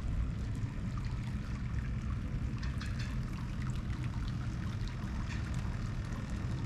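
Hot-spring water pouring and trickling steadily into an open-air bath from its spout, a continuous splashing flow with a low rumble beneath it.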